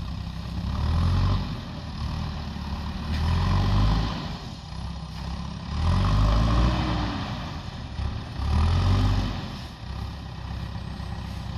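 JCB backhoe loader's diesel engine running, revving up and settling back four times at a regular pace, about every two and a half seconds.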